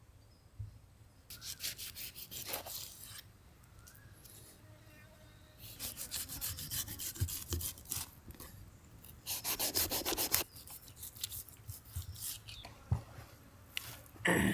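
Knife cutting and scraping through the scaled skin of a large fish in three spells of quick rasping strokes, with a single knock near the end.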